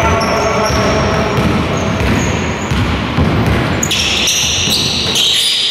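Basketball dribbled on a wooden gym floor, echoing in the hall, with high-pitched sneaker squeaks on the court that are loudest from about four seconds in.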